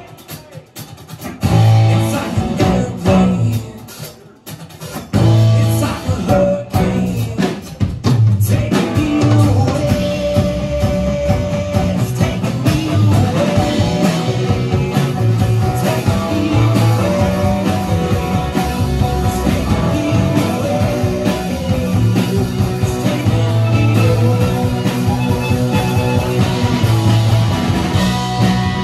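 A live band with acoustic and electric guitars, upright bass and drum kit plays a rock/Americana song. For the first several seconds the band plays short accented hits with near-gaps between them, then plays on continuously from about eight seconds in.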